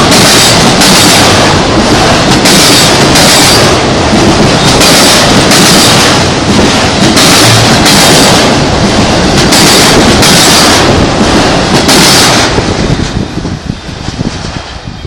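Freight train cars rolling past close by, loud, with a rhythmic clatter of wheels over rail joints about once a second. About twelve seconds in, the last cars go by and the sound drops away.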